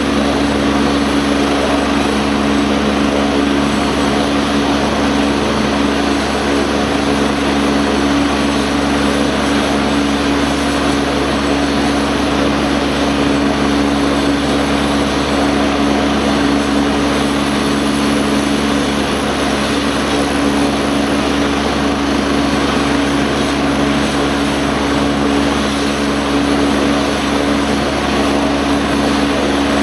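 An Air Force AgustaWestland A109 helicopter running loud and steady on the ground before takeoff: an even turbine hum with rotor noise that holds the same pitch throughout.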